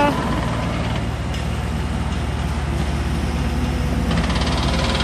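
Excavator's diesel engine running steadily with an even, fast low throb.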